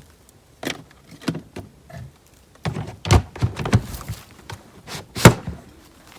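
Irregular knocks and thuds of wood and debris being handled and dropped onto a burn pile, with a sharp loud knock about five seconds in.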